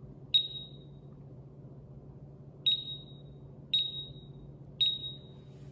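SENKO MGT portable multi-gas detector beeping as its power button is held to switch it off: one short high beep about a third of a second in, then three more about a second apart as the power-off countdown runs.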